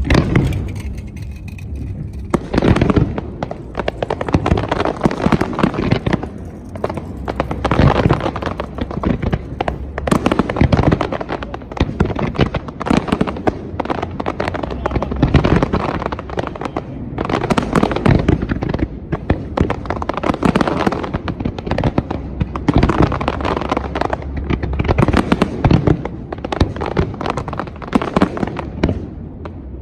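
Fireworks display: a dense, near-continuous barrage of shell bursts and crackling that starts about two seconds in and swells and eases in waves.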